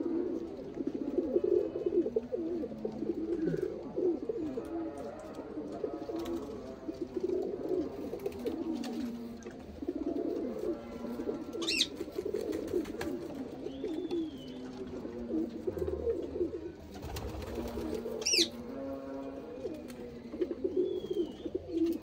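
Many domestic pigeons cooing steadily in a loft, with a few brief high chirps breaking in now and then.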